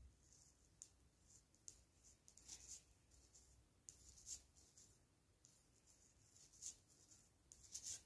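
Faint, irregular clicks and scrapes of knitting needles and yarn as six stitches are crossed into a cable.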